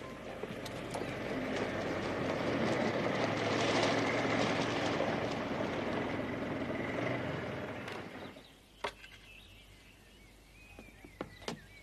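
Horse-drawn wagon rolling along, a rumble of wheels and hooves that grows louder to a peak about four seconds in and fades out about eight seconds in.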